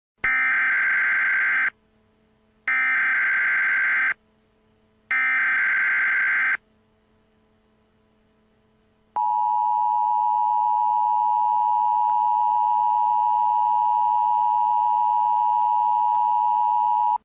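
Emergency Alert System tone sequence: three identical buzzy digital data bursts of the SAME header, each about a second and a half long with short gaps, then after a pause of a couple of seconds the steady two-tone EAS attention signal, held for about eight seconds and cut off abruptly. It signals the start of a new emergency alert message.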